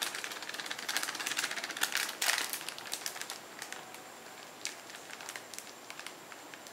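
Thin plastic bag of flour crinkling and rustling as it is shaken and squeezed over raw fish, a dense rapid crackle for about the first two and a half seconds, then sparser light clicks.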